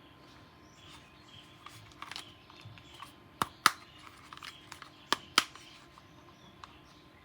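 Plastic toy guns being handled: light rustling with scattered sharp clicks, loudest in two quick pairs, about three and a half and five seconds in.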